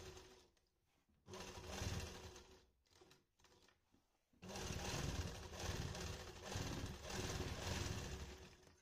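Sewing machine stitching fabric in stop-start runs. A short run fades out at the start, another comes about a second and a half in, and a longer steady run begins about four and a half seconds in and stops near the end.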